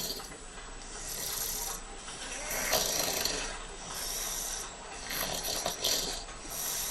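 A man snoring in his sleep: two harsh, rasping snores about two and a half seconds apart, with hissing breaths between them.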